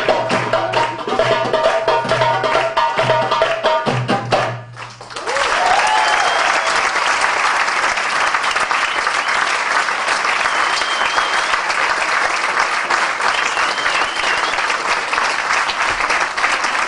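Darbuka goblet drums playing a fast rhythm that stops about four and a half seconds in, then audience applause with a few whistles.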